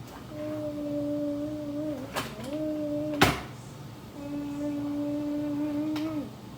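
A person humming long, steady low notes, three held tones that each dip at the end, with a single sharp click a little past three seconds in.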